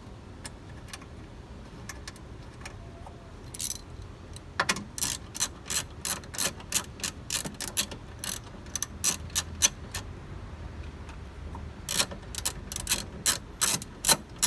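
Hand ratchet clicking in quick runs, several clicks a second, as a 10 mm bolt is driven into the engine air intake housing. The bolt is not threading in. The clicks start a few seconds in, pause briefly, then come faster near the end.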